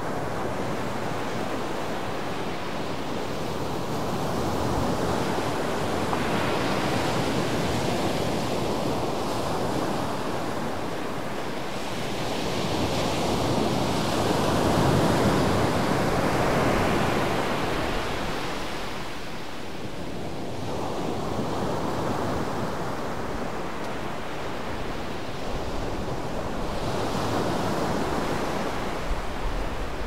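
Small surf breaking and washing up a sandy beach, the rush of the waves swelling and fading every few seconds, loudest about halfway through.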